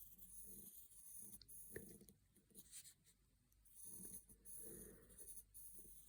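Faint scratching of a pen writing letters, in short separate strokes with small taps between.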